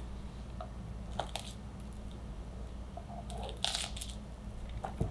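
Small kitchen knife cutting and trimming banana halves on a plastic cutting board: a few soft knocks and scrapes, the loudest about three and a half seconds in, over a steady low hum.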